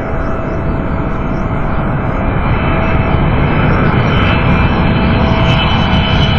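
Boeing 777-300ER's GE90-115B jet engines at takeoff power, a steady loud rumble with a thin steady whine, slowly growing louder as the airliner departs.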